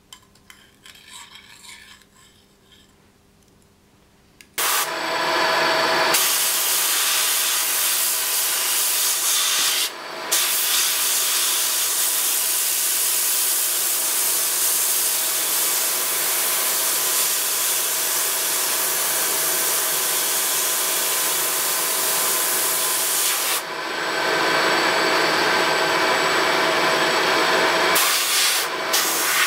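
Milling machine running, a small end mill cutting a slot into a wooden knife-handle block: a loud steady rasp with a few steady tones over it. It starts about four and a half seconds in after some faint handling sounds, and dips briefly twice.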